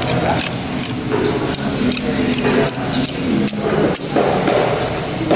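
Yellowfin tuna being cut and handled on a chopping block: a run of clicks, knocks and scrapes as the backbone is pulled from the fillet and the knife works the flesh, with voices chattering in the background.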